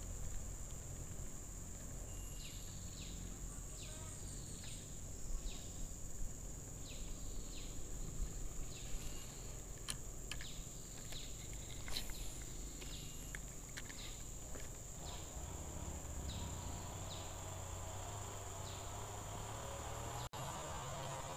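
Insects droning steadily at one high pitch, with short falling chirps repeating every second or so and a few faint clicks.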